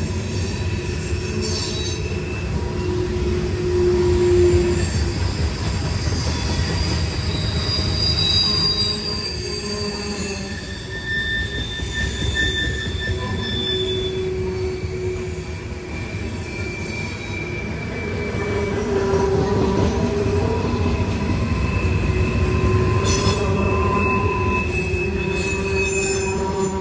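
Norfolk Southern freight train rolling past, its steel wheels squealing against the rails. Several shrill tones come and go and change pitch over the steady rumble of the cars.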